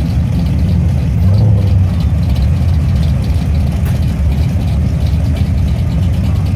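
Several drag cars idling in the staging lanes: a steady, loud low rumble of engines.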